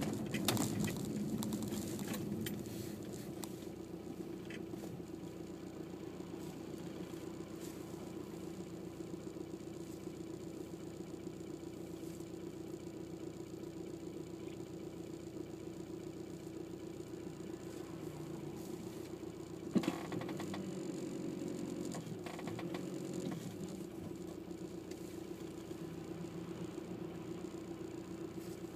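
A car running, a steady hum with a sharp click about two-thirds of the way through.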